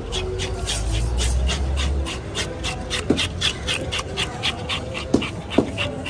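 A dog panting quickly and steadily, about four to five breaths a second, with a few sharp knocks now and then and a low rumble in the first two seconds.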